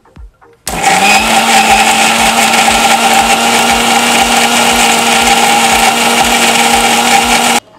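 Electric mixer-grinder blending papaya peels with a little water into a paste. The motor starts suddenly less than a second in, rising briefly in pitch as it comes up to speed, runs loud and steady, and cuts off just before the end.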